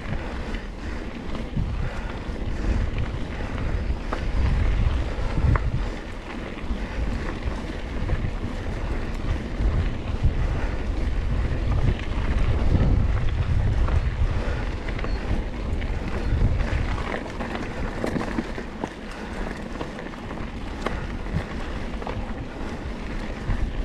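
Wind buffeting the microphone during a fast descent on a rough trail, a heavy uneven rumble that swells and eases, with scattered small clicks and rattles.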